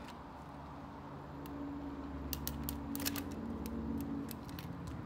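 A ferret crunching dry kibble from a food bowl in its wire cage, with a few quick sharp crunches between about two and four seconds in.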